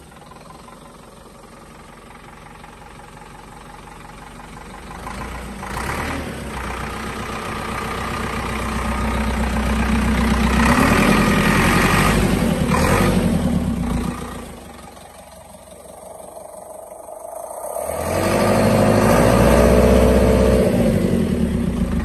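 Dongfeng DF1004-2 100 hp tractor's diesel engine idling, then revved up and held high twice, dropping back to idle in between.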